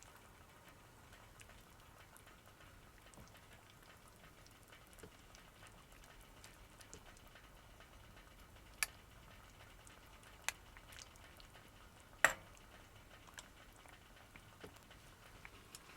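Wood fire crackling faintly, with scattered small ticks and three sharp pops in the second half, the loudest about three-quarters of the way through.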